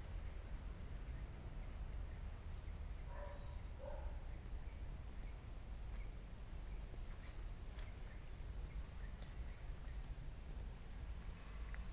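Forest ambience: faint, thin, high-pitched bird calls, a few short whistles and a couple of sliding notes about five seconds in, over a low steady rumble on the microphone, with a few light clicks.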